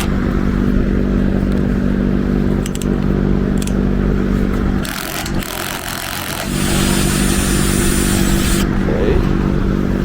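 A big electric fan running with a loud, steady hum, which cuts out for about a second and a half near the middle and then returns. A few light clicks and clatter are heard.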